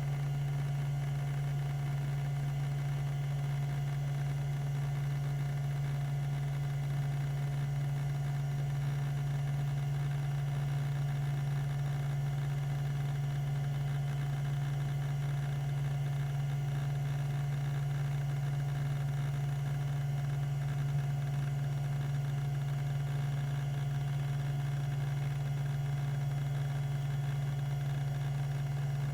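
Tandon TM362 20 MB MFM hard drive spinning at 3600 rpm: a steady low hum with a faint higher whine, and no seek clicks.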